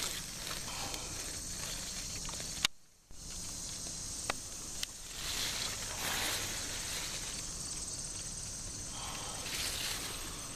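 Leaves rustling and brushing against the microphone over a steady outdoor hiss, with a few sharp clicks. The sound cuts out abruptly for about half a second near three seconds in.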